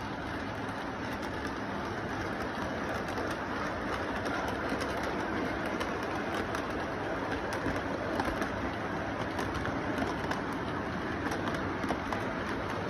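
Model freight train rolling past on its track: a steady rumble of the wheels and motor with rapid, irregular clicking as the cars run over the rail joints.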